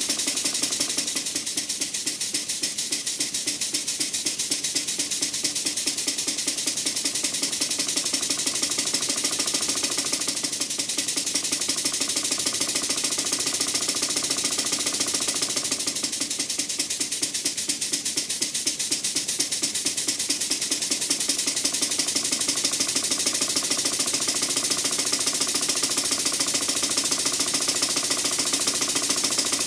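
A 3-inch scale Garrett traction engine running on compressed air, its crankshaft, eccentrics and Stephenson's link valve gear clattering in a rapid, steady beat. Air hisses and puffs straight out of the cylinder ends, which are open to the atmosphere because no drain cocks are fitted.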